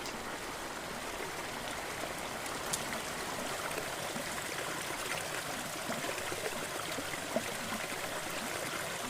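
Steady rush of a hill stream's flowing water, with a couple of faint ticks.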